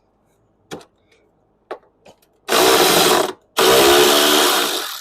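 A cordless power tool running in two short bursts, spinning off the two 13mm nuts on the top mount of a Pontiac G6's rear shock. A couple of light clicks from the tool and socket come first.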